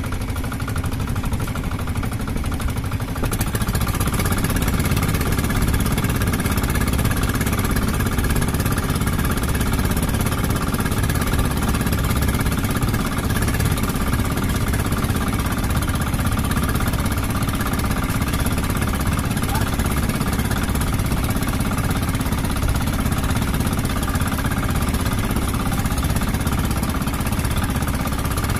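Engine of a small motorized outrigger fishing boat running steadily under way, getting louder about three seconds in.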